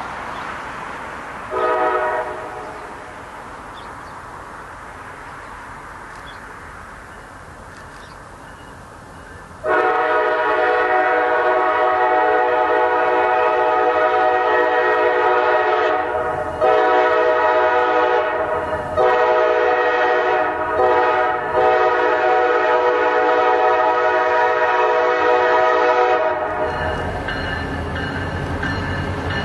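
CSX diesel freight locomotives approaching. The horn gives a short toot about two seconds in, then from about ten seconds in a long series of blasts with brief breaks. Near the end the horn stops and the deep rumble of the diesel engines and wheels takes over as the lead units pass close by.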